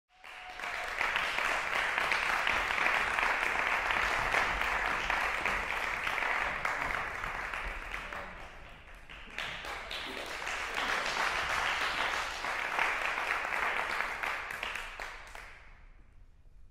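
Audience applauding. The clapping dips a little past the middle, swells again, and dies away near the end.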